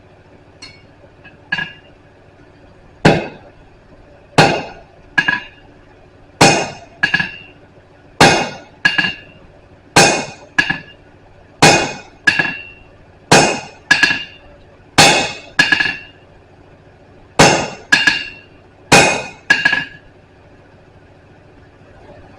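Blacksmith's hand hammer striking steel on an anvil, forging a flatter. A few light taps come first, then heavy blows mostly in pairs, a pair about every one and a half seconds, each blow with a short metallic ring. The hammering stops near the end.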